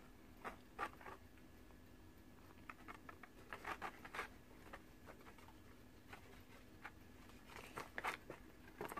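Faint, scattered rustling and small clicks of packaging and small plastic toys being handled on a table, heaviest around the middle and near the end.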